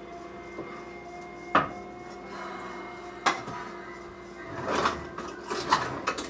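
Kitchen handling clatter: two sharp knocks of dishes or utensils set down on a counter, then a few quicker rattling knocks near the end, over a steady hum.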